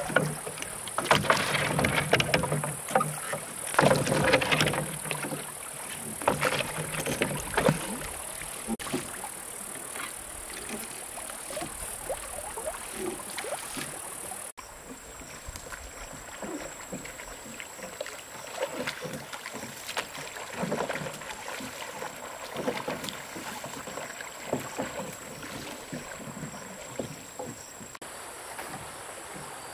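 Wooden rowing boat being rowed: oars dipping and splashing in the water with knocks of wood on wood, loudest in the first several seconds, then fainter.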